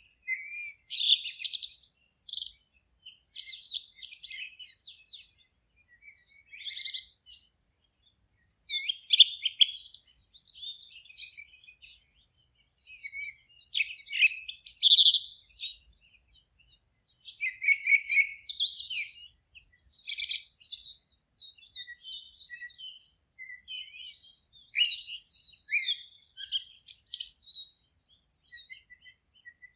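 Songbirds singing: a string of short, high chirping phrases, one after another with brief silent pauses between them.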